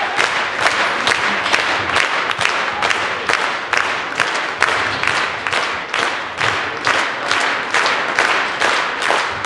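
Hall audience and performers applauding together: dense, steady clapping with individual claps standing out.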